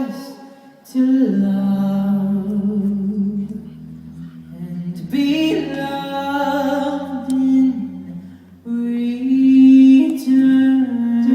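A cappella vocal group singing wordless sustained harmonies over a low bass voice, in long swelling phrases with short breaks between them.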